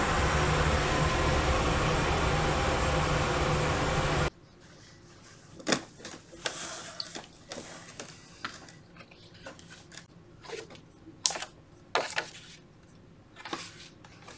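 A loud steady rushing hum that cuts off suddenly about four seconds in. Then a paperback coloring book is handled on a wooden desk: scattered taps and short paper rustles as the book is set down, its cover is opened and its pages are turned.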